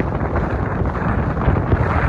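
Loud wind buffeting the microphone: a dense, rumbling rush of noise, heaviest in the low end.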